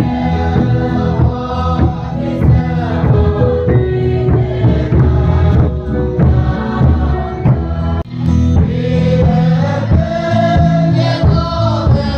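A church choir of mixed voices singing a hymn together, with instrumental accompaniment.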